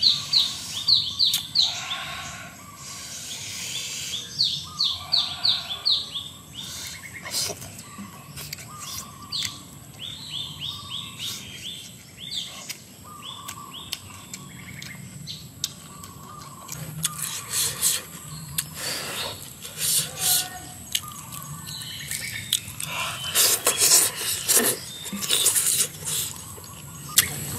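Wild birds singing, with repeated quick runs of short, high chirps. In the second half a run of sharp crackling clicks comes in, loudest near the end.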